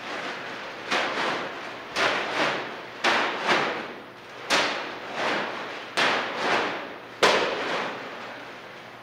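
Heavy plastic trash bags full of clay slapping and thudding onto a hard floor with plastic crinkling, about one sharp hit a second, some in quick pairs, each fading quickly.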